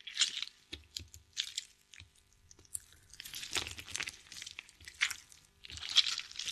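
Close-up handling of a plastic flip-top fabric paint bottle: the cap clicks open and a metal pin scrapes in the paint-coated nozzle. It comes as a string of irregular crackly clicks and scrapes.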